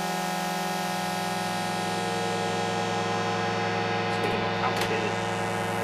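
Sequential Circuits Prophet-5 Rev 2 analog synthesizer holding one steady note, with oscillator one's pulse width modulated at audio rate, giving a dense tone rich in overtones. There is a brief flutter in the sound a little past four seconds in.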